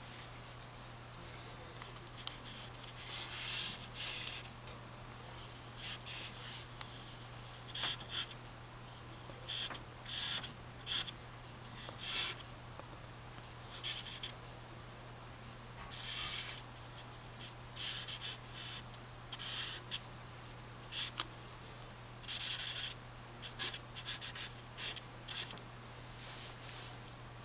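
Charcoal stick scratching and rubbing across drawing paper in many short, irregular strokes, over a steady low hum.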